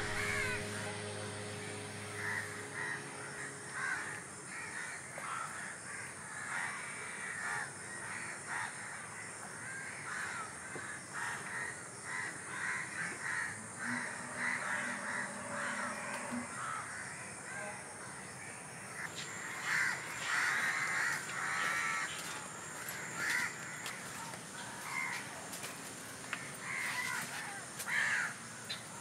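Crows cawing again and again, the calls coming thickest and loudest a little past the middle.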